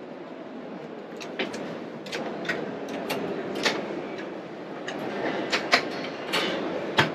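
A series of sharp clicks and knocks from a hinged worktop extension flap in a motorhome kitchen being lifted, lowered and handled, the loudest two knocks coming near the end, over steady background noise.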